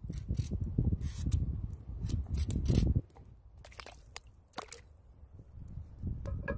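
A knife scraping the peel off a raw potato in quick strokes over a low rumble. This cuts off suddenly, followed by a few soft plops of potato chunks dropped into a pot of water. Near the end comes a short metallic clank from the lid of a cast-iron Dutch oven.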